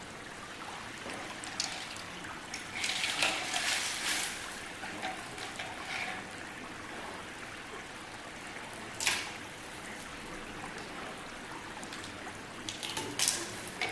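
A giant panda making short, breathy huffs: a run of them about three seconds in, one near nine seconds, and a cluster near the end, over a steady background hiss.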